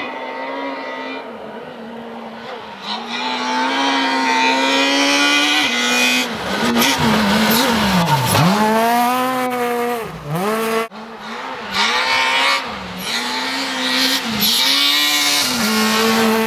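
Ford Fiesta S2000 rally car's naturally aspirated two-litre four-cylinder engine at high revs as the car approaches and passes close. The pitch climbs through the gears again and again, and drops deeply about eight seconds in as the driver lifts and brakes for the bend before accelerating hard again. A single sharp crack comes a little before eleven seconds.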